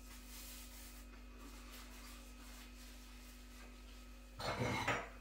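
Quiet kitchen room tone with a steady low hum and, at first, a faint paper-napkin rustle; near the end, a short scraping clatter of under a second as a ceramic plate is moved on the worktop.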